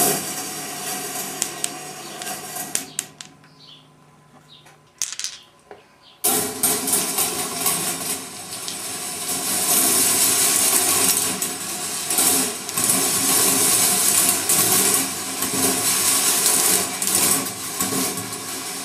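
Marbles rolling and rattling along the stainless-steel wire tracks of a rolling ball sculpture, with many quick clicks as they strike the rails and each other. It thins to a few scattered clicks for a few seconds, then picks up again suddenly about six seconds in and stays busy.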